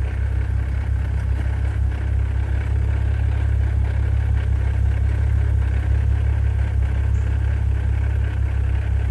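BMW N55 turbocharged straight-six idling steadily with the air conditioning on, with a light rattle from the single-mass lightweight flywheel at the transmission. The A/C load brings the rattle out, typical of a single-mass flywheel; it is noticeable but not that bad.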